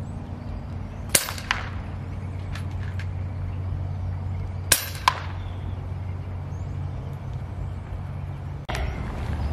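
Two shots from a pre-charged pneumatic air rifle, about three and a half seconds apart. Each is a sharp crack followed about a third of a second later by a fainter click, over a steady low hum.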